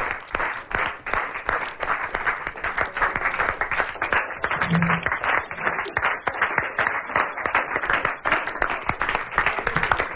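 A group of people applauding, with dense, irregular hand clapping throughout.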